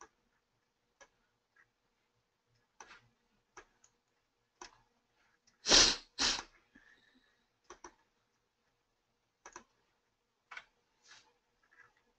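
Sparse faint clicks and ticks, with two louder short puffs of noise about half a second apart near the middle, picked up on an online-call microphone.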